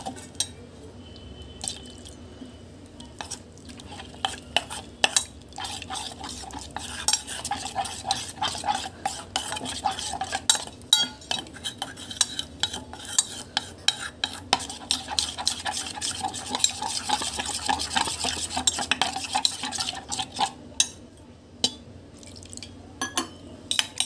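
A utensil briskly stirring a flour, black pepper and salt batter in a stainless steel bowl, with rapid, irregular clicks and scrapes against the metal as the coating paste is mixed smooth. The stirring eases off a few seconds before the end.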